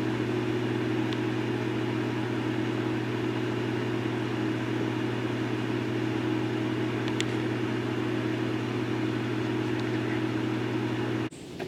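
Steady, loud hum of a pool pump's electric motor running, with a deep droning tone and a hiss of water flow. It cuts off abruptly near the end.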